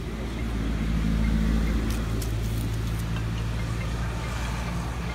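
A car engine running close by: a steady low hum that swells about a second in and holds. A few sharp clicks come in the middle.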